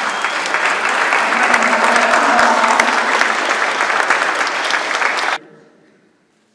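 Audience applauding: dense, steady clapping that cuts off abruptly about five seconds in.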